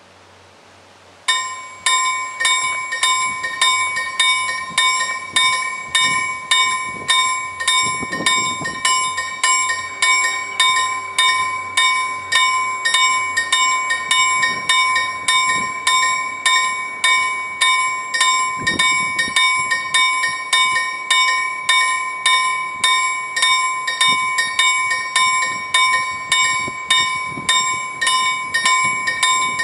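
Level crossing warning bell starts ringing abruptly about a second in and keeps striking at an even pace of about two strikes a second, signalling that the crossing has activated for an approaching train.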